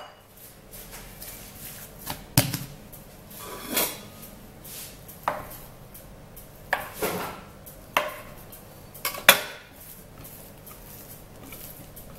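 Metal dough scraper cutting through brioche dough and striking a granite countertop: a series of sharp clacks at irregular intervals, roughly one every second or so, with the last two close together about nine seconds in.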